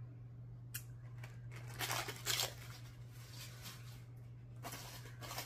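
Plastic packaging rustling and crinkling in a few short bursts as packages are handled and rummaged out of a plastic shipping bag, over a faint steady low hum.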